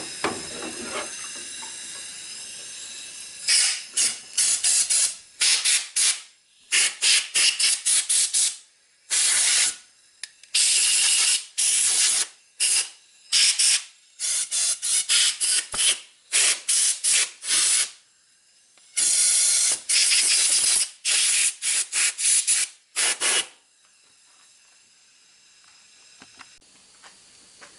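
Compressed air hissing from a hand-held blow gun in many short blasts, some lasting a second or two, as it blows water off a just-washed black-powder revolver barrel. The blasts begin a few seconds in and stop a few seconds before the end.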